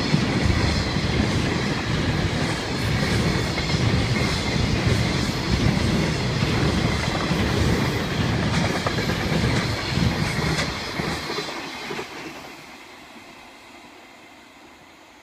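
Freight train's container wagons rolling past, their wheels clattering rhythmically over the rail joints. The sound falls away about twelve seconds in as the last wagons go by and the train draws off.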